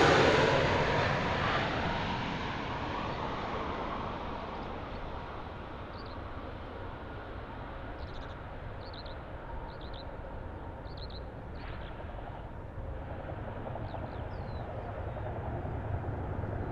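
Jet airliner's engine noise fading away after it passes, settling into a steady distant rumble. Faint short chirps from a small bird come several times through the middle.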